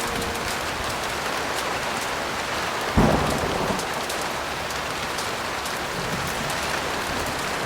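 Steady heavy rain with fine drop ticks, and a single crack of thunder about three seconds in that rumbles away over about a second.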